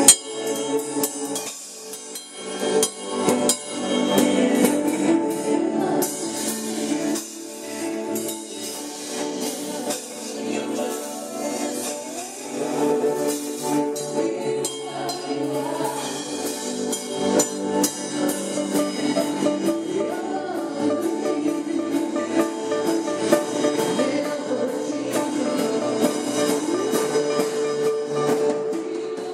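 Live band playing a song during a sound check, with a singer over sustained chords and percussion keeping a steady beat.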